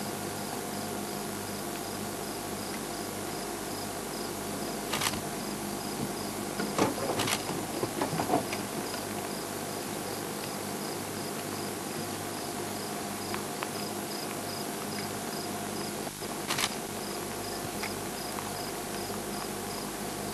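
Crickets chirping in a steady, high, pulsing rhythm over a low hum, with a few faint clicks.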